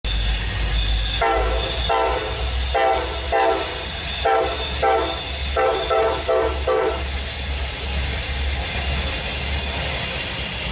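Norfolk Southern diesel freight locomotives passing, sounding a string of short horn blasts for the first seven seconds or so over a steady deep engine rumble, with a steady high-pitched squeal throughout.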